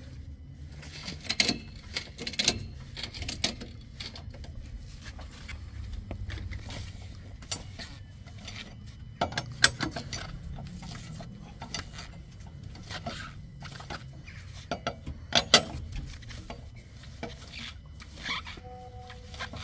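Steel four-way cross wrench working a car's wheel nuts loose: irregular metallic clicks, scrapes and clinks as the socket fits over the nuts and the nuts are spun off and handled, with a few sharper knocks.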